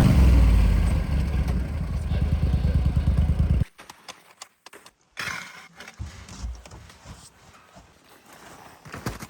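Argo amphibious ATV engine running steadily, cut off abruptly a little over three seconds in. Quieter irregular rustling and knocks follow.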